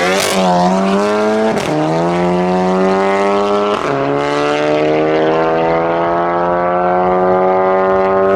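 VW Golf Mk7 accelerating hard through the gears, its engine note climbing steadily. There is a sharp crack from the exhaust near the start, then two upshifts about one and a half and about four seconds in, each with a crack as the pitch drops, followed by a long slower climb in the next gear.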